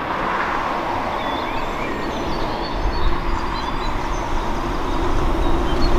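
Dutch level crossing warning bell ringing steadily as the crossing activates, with the low rumble of an approaching train growing from about halfway through.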